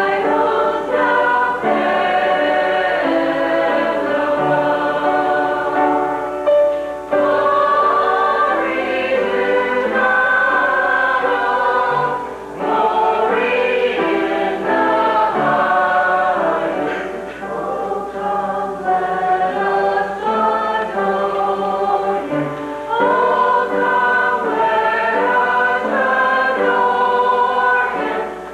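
A choir singing, with short breaks between phrases.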